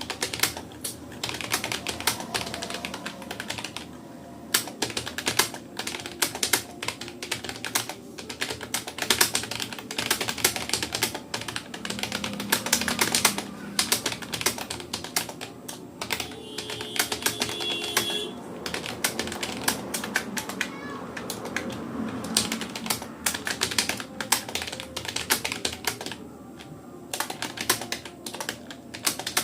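Fast, continuous touch-typing on a Rapoo computer keyboard: rapid, irregular key clicks with only brief pauses.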